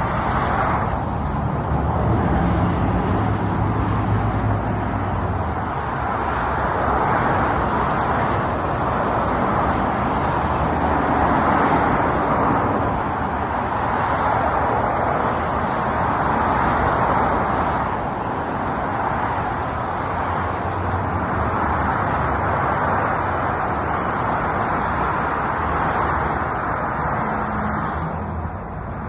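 Continuous highway traffic: the rush of tyres and engines swells and fades as vehicles pass one after another every few seconds.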